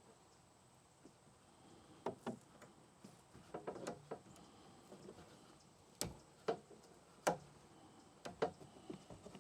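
Scattered light clicks and knocks of hardware being handled against and inside a plastic kayak hull. They come singly or in short clusters every second or two, the sharpest about seven seconds in.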